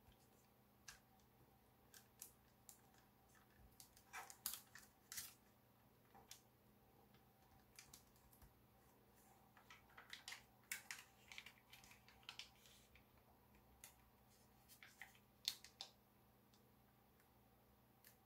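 Faint crinkling and crackling of gold foil origami paper being folded and creased by hand: scattered short crisp crackles that come in small clusters.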